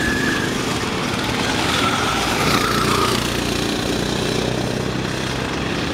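Several small go-kart engines running together as karts lap the track, a steady mechanical sound whose pitch rises and falls a little.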